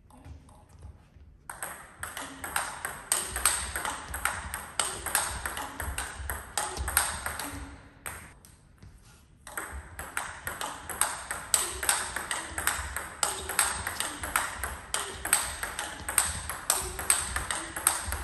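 Table tennis ball struck back and forth in a fast rally, a quick run of sharp clicks off the bats and the table. There are two rallies, the first starting about a second and a half in, with a break of about two seconds between them.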